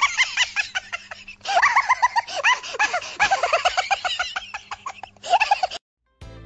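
High-pitched laughter: rapid runs of cackling giggles, several a second, that break off abruptly near the end.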